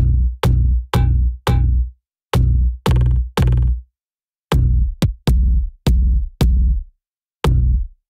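Synthesized ethnic-style drum hits from a UVI Falcon software-instrument preset ('Prehistory'). About fourteen deep hits come in short runs of three or four, each ringing briefly before dying away.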